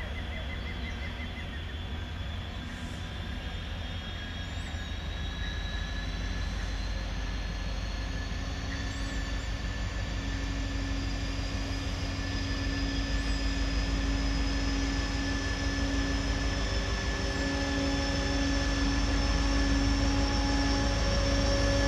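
Voith Maxima 40 CC diesel locomotive pulling a heavy construction-materials train as it approaches. Its engine runs with a steady low rumble and a thin whine that slowly rises in pitch, growing louder as the train nears.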